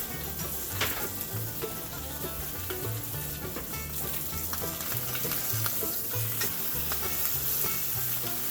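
Trout frying in a pan on a small camp stove: a steady sizzle, with a few light clicks of a utensil against the pan.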